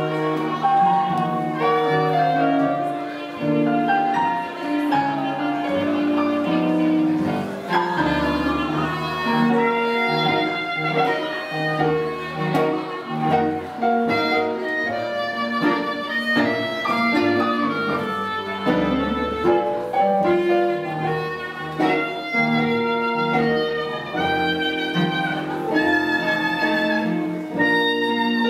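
Swing music played by a live band, with melody notes over a moving bass line.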